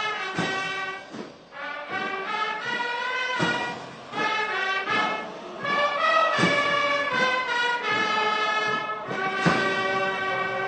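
Ceremonial brass music with heavy drum strikes every few seconds.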